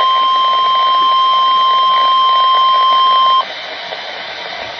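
Weather-radio warning alarm tone, the steady 1050 Hz attention signal that comes before a severe thunderstorm warning. One unbroken high beep cuts off about three and a half seconds in, leaving the hiss of radio static.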